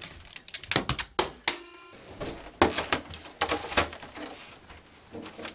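Corded wall telephone's handset clattering back onto its cradle, followed by more clicks and knocks of things handled on a table. A short ringing tone sounds about a second and a half in.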